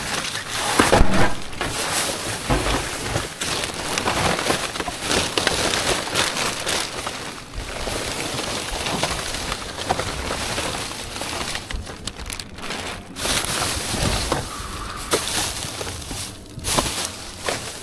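Plastic bin bags, paper and cardboard crinkling and rustling as gloved hands rummage through rubbish in a metal waste bin, with many small crackles and knocks.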